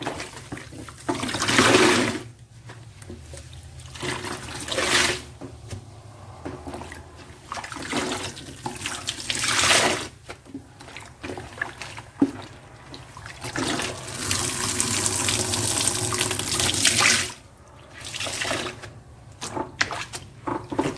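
A soaked sponge squeezed again and again by hand, water gushing out of it in about five separate pours. The longest pour lasts around four seconds.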